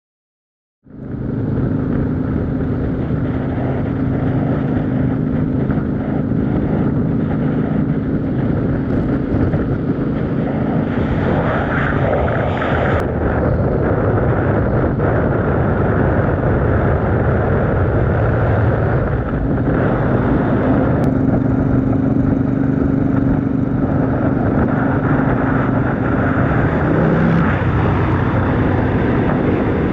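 Motorcycle engine running at a steady cruise with wind rush, cutting in suddenly about a second in and holding an even pitch throughout.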